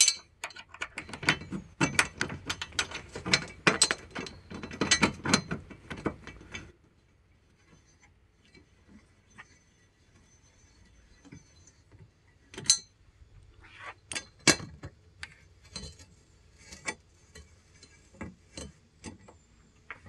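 Allen key turning a bolt into the metal rail track of a truck-bed rack: rapid metal clicking and scraping for the first six or so seconds, then scattered single clicks.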